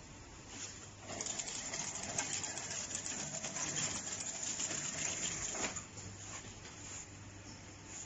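Automatic packing-line machinery running: a steady low hum, with a dense rapid clatter of clicks from about a second in that drops away just before the end.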